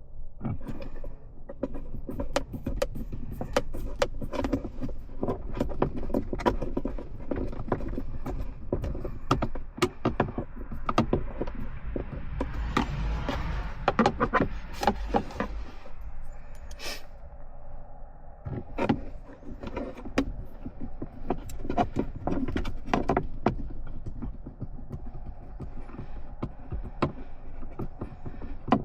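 Irregular plastic clicks, knocks and rattles from a 2009 Toyota Highlander's center console as a new console lid is handled and fitted, with a longer stretch of scraping about halfway through and a low rumble underneath.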